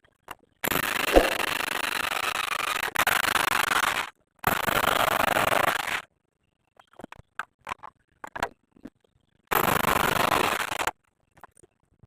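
Electric drill boring into a wall in three bursts of several seconds each, each one starting and stopping sharply, with a few light clicks and knocks between the second and third burst.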